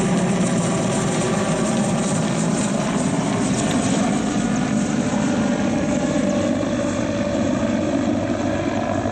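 Mi-8 transport helicopter flying low overhead: a steady, loud rapid beat of the main rotor over the engine noise.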